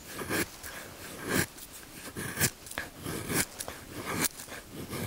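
Malanika puukko knife shaving fine curls off a dry spruce stick: a short scraping stroke about once a second, five in all.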